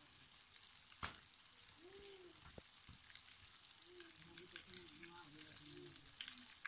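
Flour-coated chicken drumsticks deep-frying in hot oil in an aluminium pot: a faint, steady sizzle with fine crackles. A sharp knock sounds about a second in.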